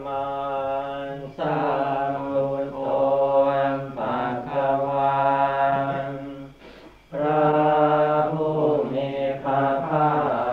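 Theravada Buddhist monks chanting Pali blessing verses in long, drawn-out held tones, with a short breath pause a little past the middle.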